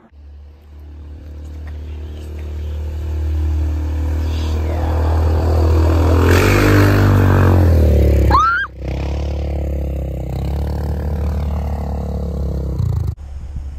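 Polaris Sportsman 500 ATV's single-cylinder engine, fitted with an aftermarket Hotseat exhaust, running and revving as the quad drives through snow. The engine note builds over the first eight seconds or so, breaks off abruptly, then resumes steadily in a second take.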